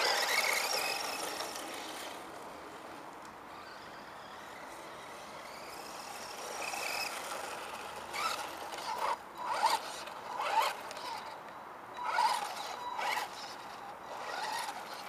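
ECX Circuit 1:10 four-wheel-drive electric RC stadium truck driving on grass and dirt, its motor and drivetrain giving a high whine. It starts loud, then comes in several short throttle bursts with the tyres scrabbling over the ground in the second half.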